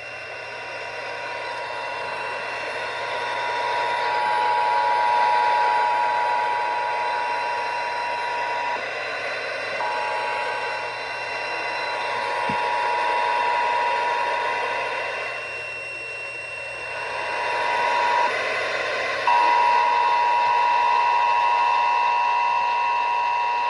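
Emergency Alert System attention signal: the two-tone alert tone held steadily over a background hiss, marking the start of an EAS Required Monthly Test. The tone drops out briefly twice, about nine and eighteen seconds in.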